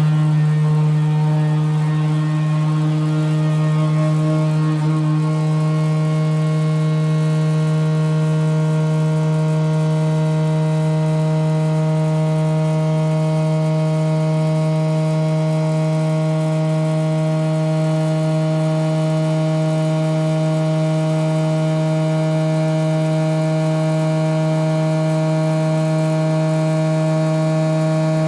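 CT scanner gantry spinning at a steady speed: a constant hum with a row of overtones, holding the same pitch and loudness throughout.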